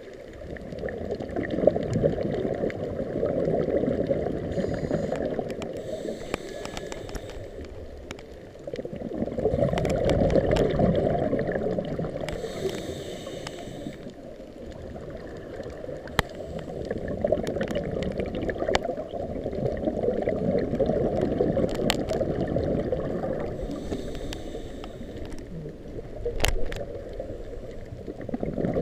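Muffled underwater rushing picked up by a GoPro inside its waterproof housing, swelling and fading every several seconds, with sharp clicks scattered through it.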